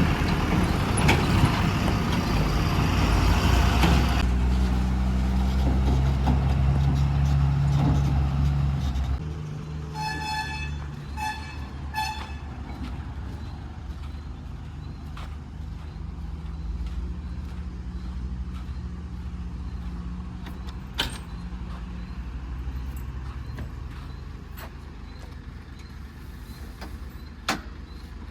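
Heavy diesel engine running hard, then dropping to a quieter idle about nine seconds in. A vehicle horn toots three times in quick succession just after. The engine runs on steadily with occasional clicks.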